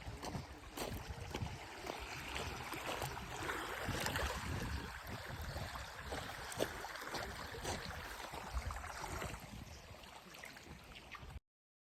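Water splashing and lapping, with wind rumbling on the microphone; the sound cuts off suddenly near the end.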